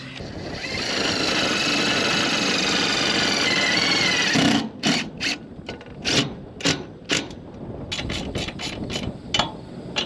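Yellow DeWalt-style cordless drill driving a screw through the steel roof panel, running steadily for about four seconds. It is followed by a string of short, sharp, irregular clicks and knocks.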